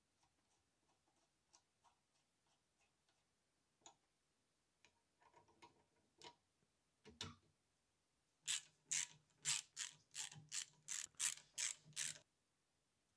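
Small steel lathe parts being fitted: faint metallic ticks of nuts turning on the cross-slide lead screw, a few light clanks, then about ten sharp clicks at roughly three a second from a ratchet driving a hex socket bit that tightens a screw under the cross-slide.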